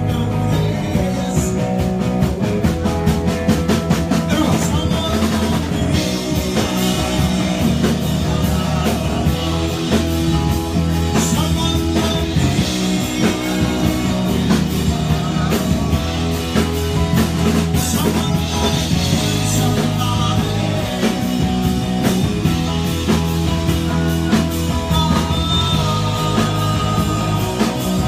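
Live rock band playing: electric guitar and drum kit with a steady beat.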